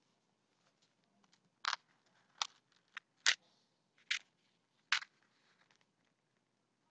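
Six short, sharp clicks at uneven intervals, about a second or less apart, over faint room hiss.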